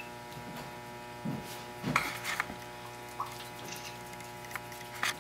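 Steady electrical hum, with a few faint knocks and scrapes as a wet plaster rock casting and a paintbrush are handled.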